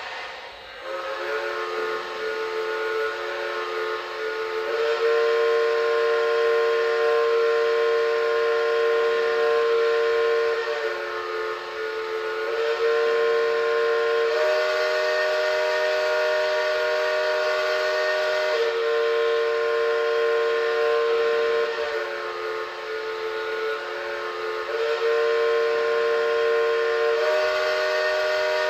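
Several model-train horns and whistles sounding together in one long, overlapping blast. The chord changes every few seconds as individual horns stop and others start.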